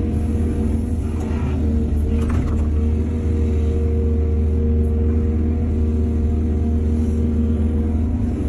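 Heavy diesel engine of an excavator running steadily with a deep, even rumble and a constant hum. Two short, fainter noises come in about one and two seconds in.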